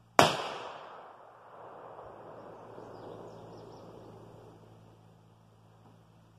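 A single rifle shot, a sharp crack a moment in, followed by its echo rolling away through the woods and dying out over about four seconds.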